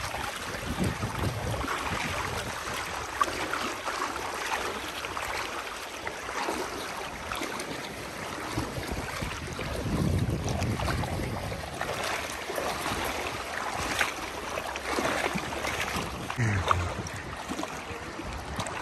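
Shallow sea water sloshing and splashing as horses wade through it, with wind buffeting the microphone in occasional low gusts.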